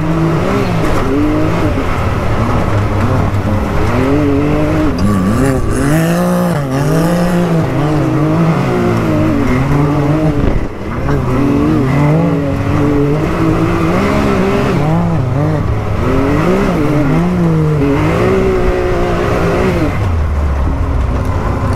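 Can-Am Maverick X3's turbocharged three-cylinder engine heard from inside the cab, its pitch rising and falling again and again as the throttle is worked at speed. There is a brief drop in loudness about halfway through.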